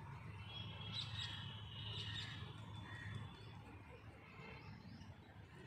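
Faint background noise in a pause between speech: a low steady hum with a few faint high-pitched chirps over the first few seconds.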